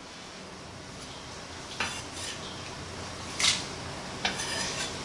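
Kitchen knife and cookware clinking and clattering in a few short sharp knocks, the loudest about three and a half seconds in, over a steady low hiss.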